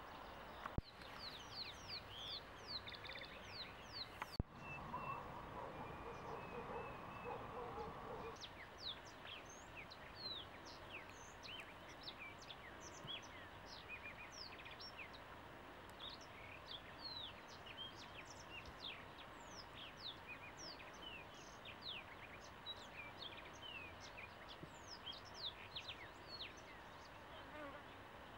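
Honeybees humming steadily and faintly from nearby hives, under many short, quick falling chirps of birds calling all through, with a lower warbling call from about five to eight seconds in.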